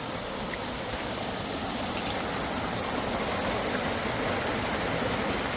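Small creek swollen with storm runoff, running fast over a small waterfall: a steady rush of water that grows slightly louder.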